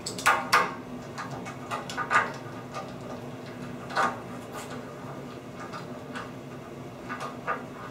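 Scattered light clicks and taps of metal roller hardware being fitted by hand to a sliding glass shower door panel, with the sharpest knocks about two and four seconds in.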